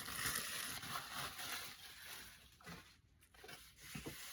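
Soft rustling of paper packing material being handled, thinning out after about two seconds into a few faint rubs and light knocks.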